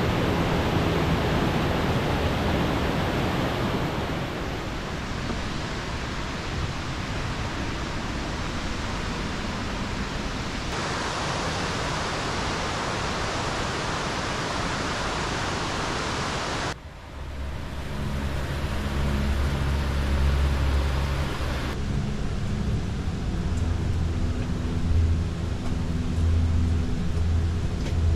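A large waterfall, Raymondskill Falls, pouring: a steady rushing water noise. Its tone and level change abruptly about 11 and 17 seconds in.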